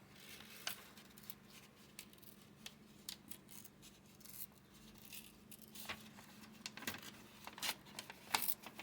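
Plain white paper being torn by hand into small pieces: scattered short crackles and rustles, louder and more frequent toward the end, over a faint steady low hum.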